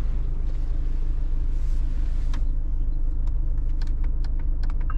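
Mercedes-Benz E220d cabriolet's four-cylinder diesel and road rumble, driving steadily with the roof down. A run of short sharp clicks comes near the end.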